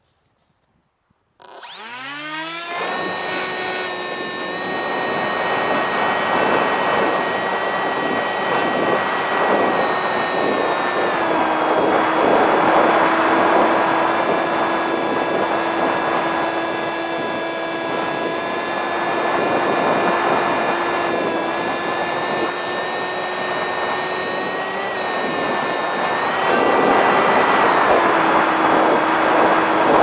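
Bixler model plane's brushless electric motor and pusher propeller spinning up from rest with a fast rising whine. It then runs as a steady whine over gusty wind noise, its pitch stepping down and back up a couple of times with throttle.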